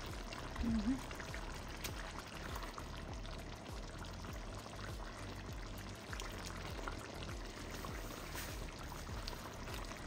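Curry gravy simmering in a stainless steel pan, with a steady bubbling and small scattered ticks as fried fish pieces are stirred in with a spatula. A short low sound comes about a second in.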